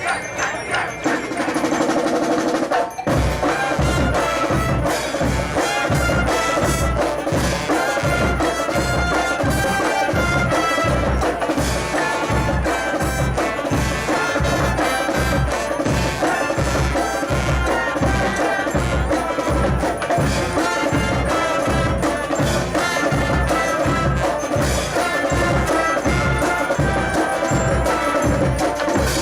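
A brass street band playing. A single held note sounds first; from about three seconds in the full band comes in, with a steady bass-drum beat of about two hits a second under the horn lines.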